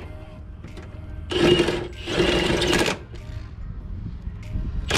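Cordless impact wrench hammering in two short bursts, about a second apart, tightening a bolt on the engine mount.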